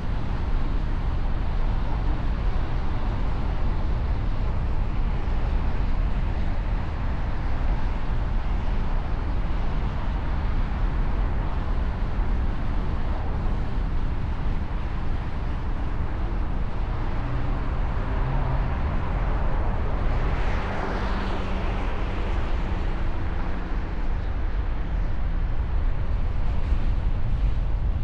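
Steady road-traffic noise with a heavy low rumble. About twenty seconds in, a vehicle passes close by, swelling and then fading.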